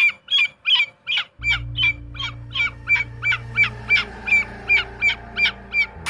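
White cockatoo calling over and over in short harsh calls, about three a second in a steady rhythm, a call its owners read as fear. A steady low hum starts underneath about a second and a half in.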